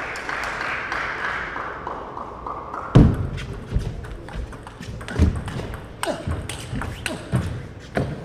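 A table tennis rally: the celluloid ball clicking sharply off the rackets and the table, with heavy low thumps from the players' play, the loudest about three seconds in.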